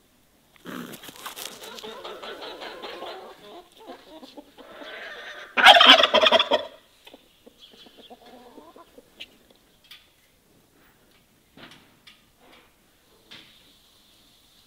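Farmyard poultry calling: a busy stretch of clucking and squawks, then one loud call lasting about a second, starting some five and a half seconds in, followed by a few scattered quieter clucks.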